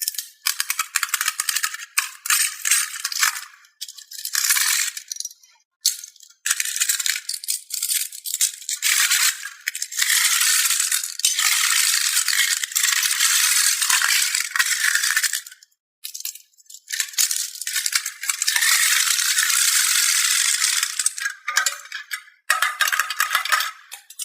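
Small plastic balls clattering and rattling together in repeated bursts of a few seconds each, with short pauses between them.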